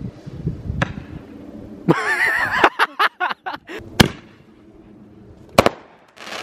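Garden fireworks going off: sharp single bangs about a second in, at about four seconds and again near the end, with a brief wavering high-pitched shriek around two seconds in followed by a quick run of crackling pops.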